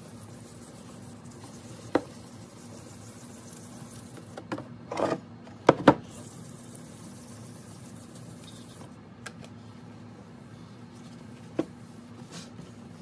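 Plastic lens of a Code 3 XS8000 lightbar being handled and sanded on a wooden workbench: a few sharp knocks and clacks, the loudest two close together about six seconds in, over a steady low hum.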